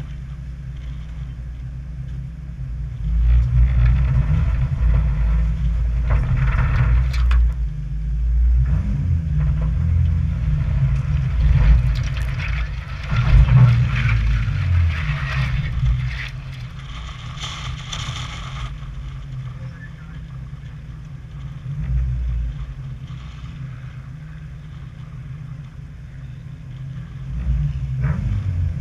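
Off-road vehicle's engine running at low speed, swelling and easing with the throttle as it crawls along a muddy rutted track. Stretches of hissing, scraping noise come and go over it, about three to seven seconds in and again from about twelve to eighteen seconds in.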